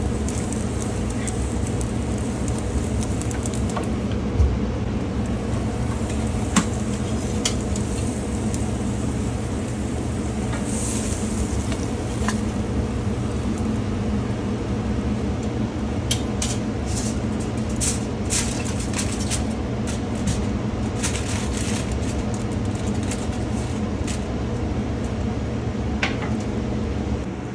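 Charcoal grill sizzling over a steady low rumble, with two sharp knocks early on and a run of quick crackles and pops from the hot grate and coals in the second half.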